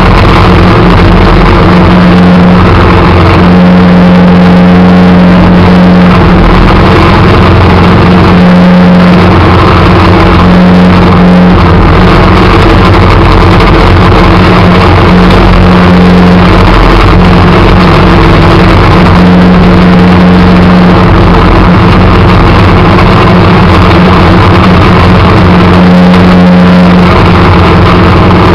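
Engine of a small snow-plowing vehicle running steadily under load, very loud and close to the microphone, its note holding level while its loudness swells and eases every few seconds.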